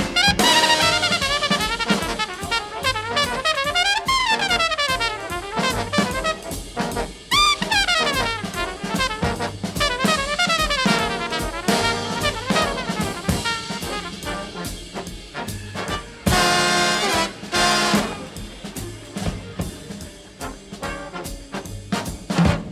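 Background jazz music: brass horns playing a melody over a drum kit.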